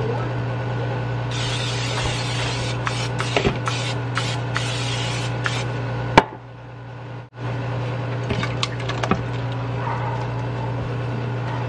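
Aerosol cooking spray hissing in a run of short bursts onto a ceramic baking dish, over a steady low hum. Near the end, chicken pot pie filling is poured from a skillet into the dish.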